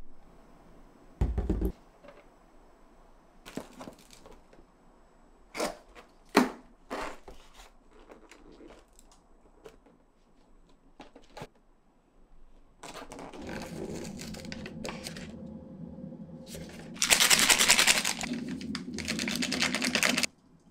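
A few scattered knocks and clicks, then plastic food packaging being crinkled and torn open, loudest for about three seconds near the end before stopping abruptly.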